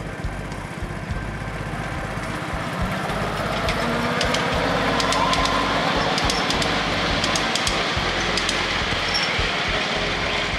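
Miniature ride-on train with its passenger cars rolling past on small-gauge track: a steady rumble of wheels on rail that swells to a peak about halfway through and eases off near the end, with a run of quick clicks in the middle.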